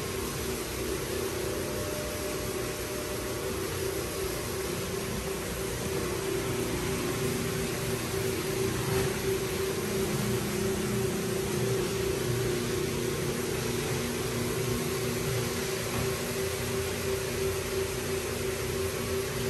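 Rotary floor buffer running steadily, its motor humming as the pad spins over a hardwood floor.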